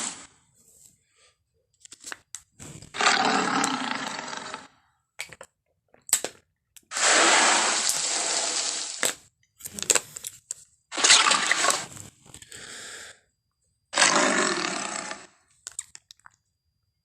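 Film Tyrannosaurus rex sound effects: four roars of one to two seconds each, with a shorter growl after the third and short snaps and cracks in the gaps.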